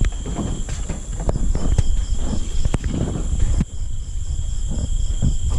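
Crickets and other night insects trilling steadily at a high pitch, with scattered close knocks and thumps over a low rumble.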